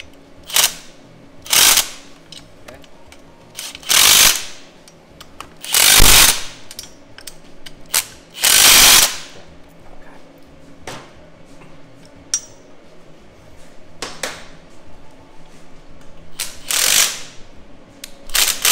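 Kobalt 24V cordless impact wrench run in a series of short bursts, some brief and some about a second long, driving engine mount bolts tight.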